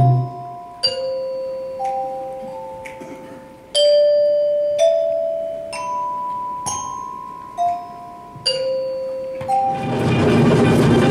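Tuned percussion played one note at a time at changing pitches, about a note a second, each note ringing on for one to three seconds and overlapping the next. Near the end, a dense wash of group percussion comes in.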